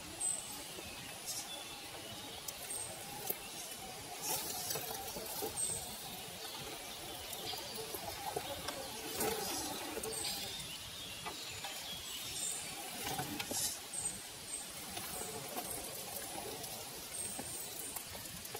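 Scale RC crawler's small electric motor and gearbox whining faintly, wavering up and down with the throttle as it crawls over stones, with scattered clicks of tyres and chassis on rock. Small birds chirp briefly now and then.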